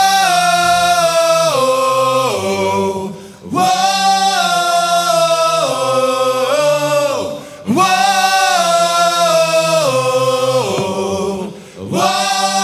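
Male rock vocalists singing a repeated chant-like refrain a cappella, with no drums: three phrases of long held notes, each stepping down and sliding off at its end, broken by short gaps about three and a half, seven and a half and eleven and a half seconds in.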